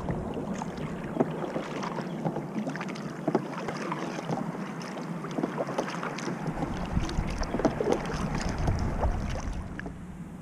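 Kayak on the water: irregular small knocks and clicks against the hull over a steady hiss, with some wind on the microphone.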